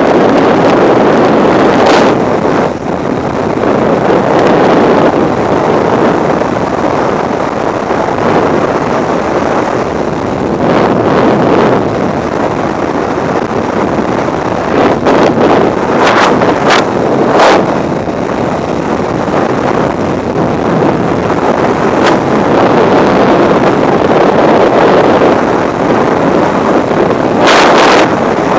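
Freefall wind rushing over the camera's microphone during a skydive: a loud, steady roar with brief, sharper gusts now and then.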